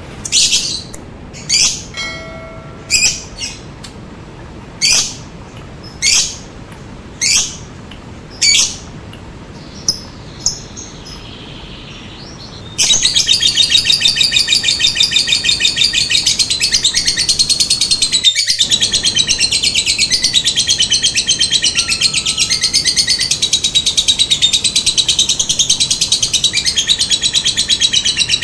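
Lovebird calling: sharp single chirps about once a second for the first dozen seconds, then a long unbroken, rapid, high chatter (the long 'ngekek' trill) that runs on to the end, broken only once, briefly.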